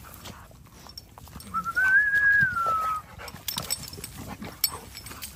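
A dog gives one long high whine, rising, holding, then falling away, over a second long. Around it are scattered light clicks and clinks from the dogs' metal chain collars as they tussle.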